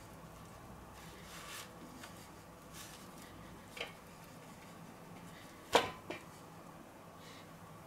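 A few soft taps and knocks from a plastic spice shaker being shaken over turkey legs in a stainless-steel tray, the loudest a single sharp knock about three quarters of the way through. The shaker's holes are clogging, so it is being shaken and knocked hard to get the paprika out.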